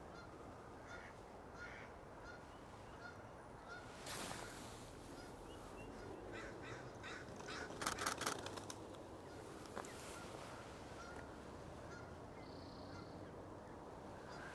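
Canada geese honking, with a cluster of louder honks about eight seconds in.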